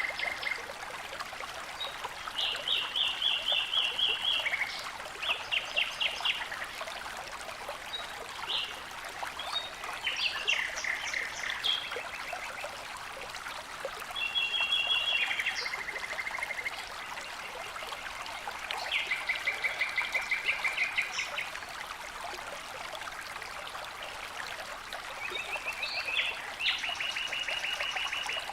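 Running water with a steady rushing sound, and a songbird singing rapid trilled phrases over it every few seconds.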